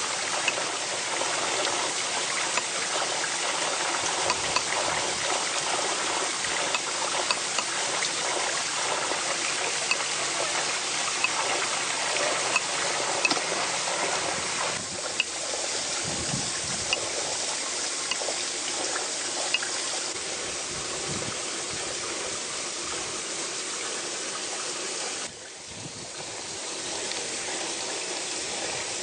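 Stream water running steadily, with short, sharp clicks now and then over it. The water noise drops suddenly about 25 seconds in, then slowly rises again.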